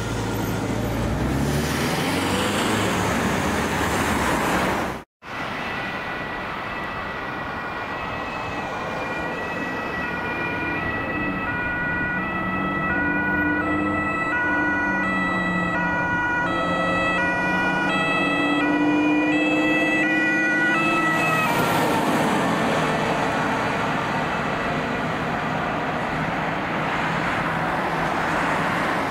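Fire engine's two-tone siren alternating between a high and a low note, starting about a quarter of the way in and cutting off about two-thirds through. Heavy truck engine and tyre noise run beneath it and swell as the truck passes afterwards, with a brief dropout in the sound about five seconds in.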